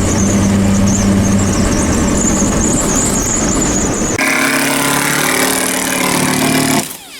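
A motor running loudly and steadily. It shifts to a different, higher pitch about four seconds in, then cuts off suddenly near the end.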